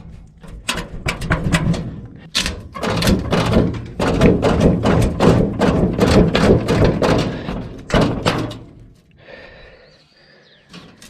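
Rapid, irregular knocks and thunks, dying down about nine seconds in to a faint hiss.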